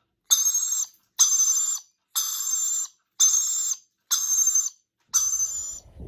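Small parrot giving harsh, shrill screeches over and over, about one a second, each call about half a second long with a clean gap between.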